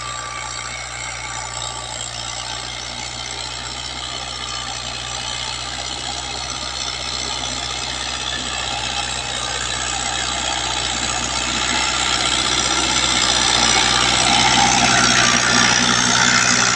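Fiat 640 tractor's diesel engine running steadily while it pulls a rotavator through ploughed soil, growing steadily louder as the tractor comes up close.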